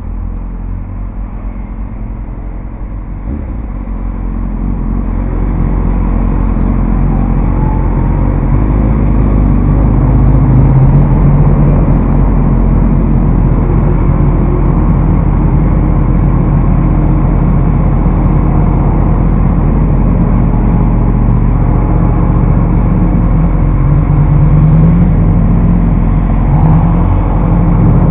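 Motorcycle riding through traffic, heard from a helmet-mounted camera: engine running under a steady rush of noise, getting louder over the first several seconds as the bike pulls away. Near the end the engine pitch rises and falls a few times.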